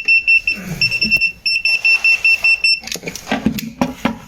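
A high-pitched electronic buzzer beeping rapidly, about six beeps a second, with two short breaks, stopping about three seconds in; then a few clicks and knocks.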